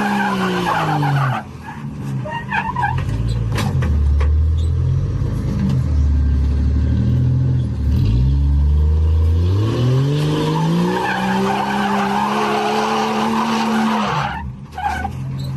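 A Jeep's engine revving hard under load on a steep slope, its pitch dropping, then climbing and holding high for a few seconds before falling away near the end. A hissing, scrabbling noise swells along with the high revs.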